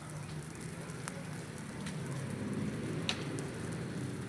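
Wood bonfire crackling, with a steady hiss and scattered sharp pops, one louder about three seconds in.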